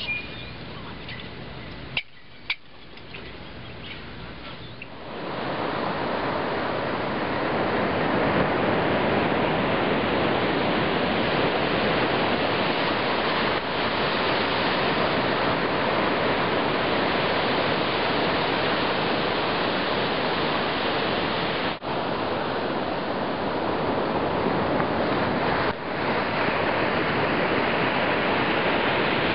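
Ocean surf washing up a sandy beach: a steady rush of noise that starts about five seconds in, after a quieter stretch broken by two sharp knocks about two seconds in.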